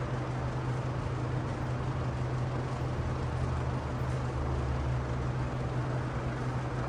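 Steady low mechanical hum with an even hiss over it.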